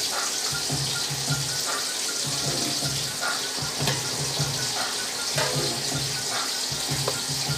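Cooking on the stove: a pot of water at a full boil giving off steam, with fish frying in hot oil, makes a steady hiss and crackle. An on-and-off low hum sounds underneath.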